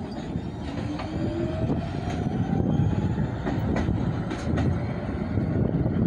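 New York City subway train running on the rails, its traction motors giving a rising whine as it picks up speed over a steady rumble, with a few sharp clicks from the wheels on the track.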